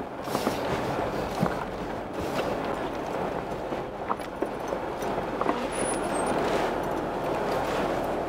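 Off-road vehicle driving slowly over a rocky dirt road: steady tyre crunch on gravel and rock with scattered sharp knocks and clicks from stones and the rattling vehicle.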